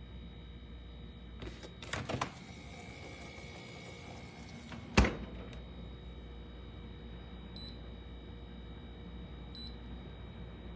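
Thermoelectric wine cooler running with a steady hum. A few clicks come about two seconds in, a single sharp knock about five seconds in, and two short, faint touch-panel beeps near the end.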